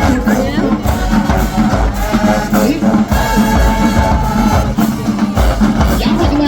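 School marching band playing: brass holding long notes over a steady beat from the drums.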